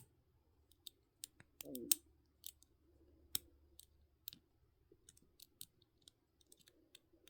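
A lock pick working the pins of a pin-tumbler lock: faint, irregular small metallic clicks and ticks as the pins are lifted and set. There is a sharper click at the very start and a brief scrape about two seconds in.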